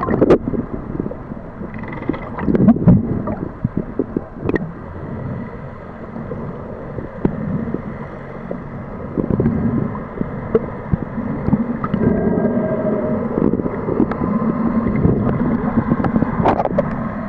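Muffled underwater noise picked up by a camera held just below the surface: irregular sloshing and gurgling of water with a few sharp clicks, growing louder about halfway through.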